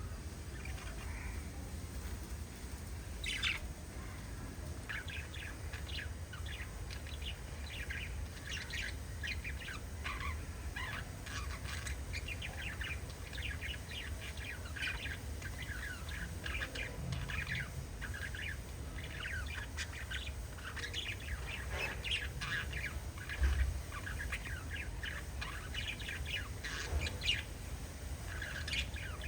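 Several budgerigars chirping and chattering together in a quick, overlapping run of short chirps, over a low steady hum. A brief low thump comes about two-thirds of the way through.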